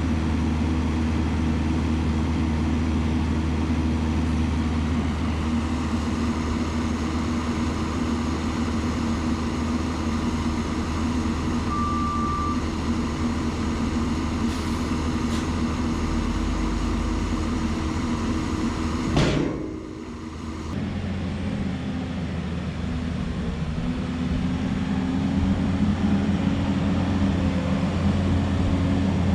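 Diesel engine of heavy construction equipment running steadily. About 19 seconds in there is a sharp knock and a brief dip, and then an engine runs on at a slightly different, higher note.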